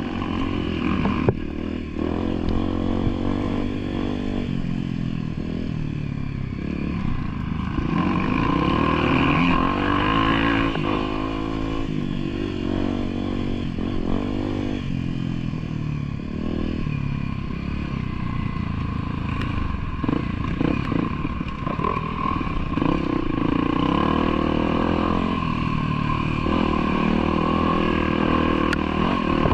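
Motorcycle engine running continuously, its revs rising and falling again and again as it rides along a rough trail, with some rattling.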